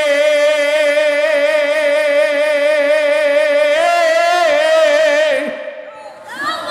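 A man singing a Bengali devotional song about a mother, holding one long wavering note for nearly four seconds. He then moves through a short run of notes and trails off, picking up again at the very end.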